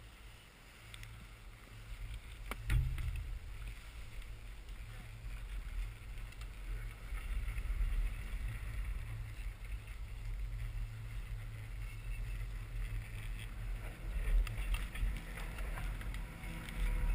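Low, steady rumble of a detachable chairlift heard from the chair, with a sharp clack about three seconds in and a few lighter clicks later as the chair nears the top terminal.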